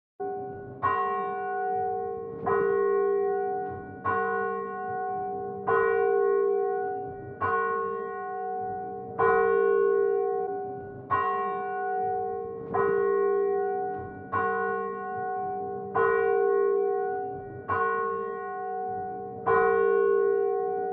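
A single church bell tolling at the same pitch, struck about every 1.7 seconds, each stroke ringing on until the next.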